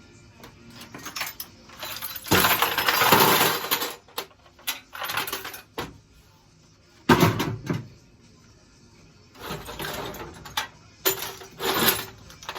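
Small hardware parts being handled and dropped into bins, clattering and rattling in uneven bursts. There is a long rattling stretch about two seconds in and a sharp knock about seven seconds in.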